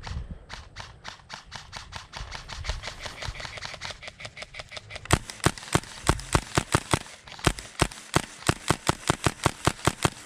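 Tippmann M4 HPA airsoft rifle firing a rapid string of shots, about five a second, the cracks growing much louder about halfway through.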